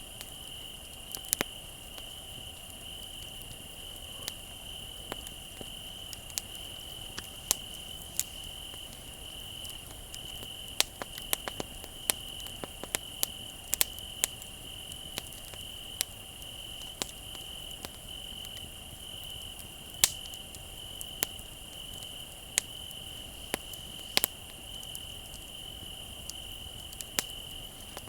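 Crickets chirring in a steady high trill, with a campfire crackling and snapping irregularly over it; the sharpest pop comes about twenty seconds in.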